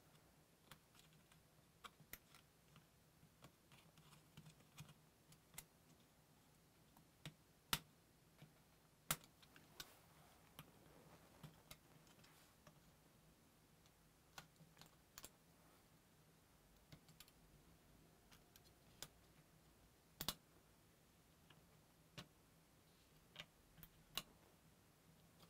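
Faint, sparse clicks and ticks of fingernails flipping up the locking tabs of a Steam Deck's ribbon-cable connectors and handling the board, with a few sharper clicks among them, over a faint low hum.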